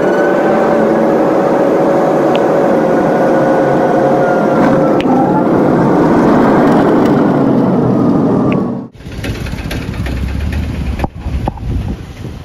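Airliner's jet engines heard from inside the cabin: a loud steady roar with a high whine held over it. About nine seconds in it cuts abruptly to a lower rumble with a few knocks.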